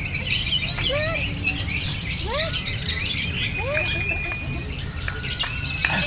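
Lovebirds chirping rapidly and continuously in a dense, high-pitched chatter, with short rising-and-falling calls every second or so and a steady low background rumble.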